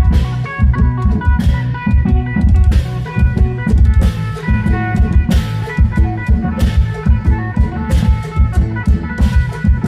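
Klong yao drum band playing a lively dance beat: drums pounding steadily, cymbal crashes about every second and a quarter, and a sustained melody line over them.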